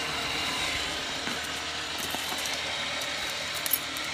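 A small engine running steadily at idle, with one sharp click about three and a half seconds in.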